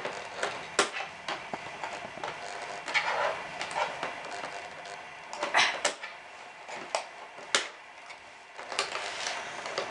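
Scissors snipping through the cardboard and plastic of a toy's packaging, with sharp irregular clicks and rustling.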